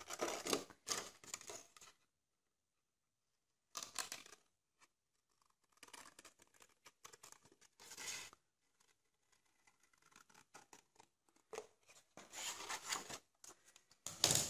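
Scissors snipping through red card stock, cutting out a curved shape. The cuts come in bursts of short crackling snips with the rustle of the sheet, and quiet gaps between the bursts.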